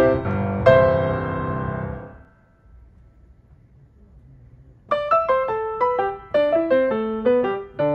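Piano music: a chord rings out and fades away about two seconds in, a quiet pause follows, then the piano starts again with a run of single notes about five seconds in.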